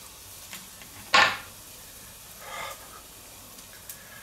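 A spatula set down on a wooden cutting board: one sharp clatter about a second in, followed by lighter taps and handling noises as the hot patty is worked by hand and knife.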